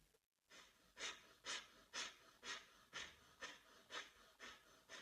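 Faint, rapid rhythmic breathing through one nostril, the right, with the left held closed in alternate-nostril pranayama: short hissing puffs about two a second, starting about a second in.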